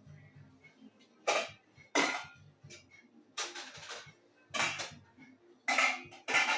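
Pot lids and dishes clattering as the lids are taken off the cooked food. There are about six separate knocks with quiet between them.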